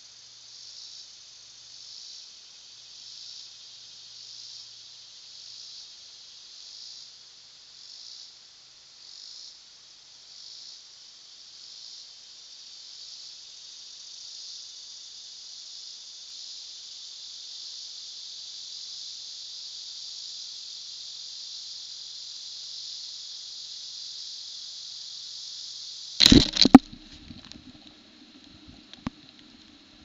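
Insects singing in a high-pitched chorus, pulsing about once a second at first and then settling into a steady drone. Near the end, a couple of loud, sharp clicks cut it off, leaving a faint low hum with scattered ticks.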